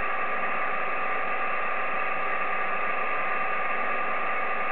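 Steady hiss of band noise from an Icom IC-7300 ham transceiver's receiver, tuned to 28.325 MHz upper sideband with no station coming through. The hiss is even, with no high frequencies.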